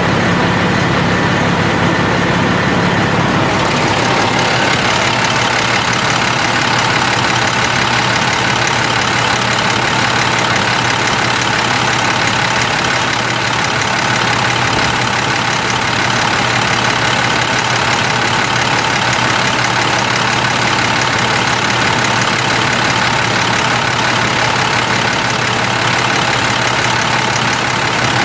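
International DT466 7.6-litre inline-six diesel in a dump truck, idling steadily at an even pitch. Its tone changes slightly about three and a half seconds in.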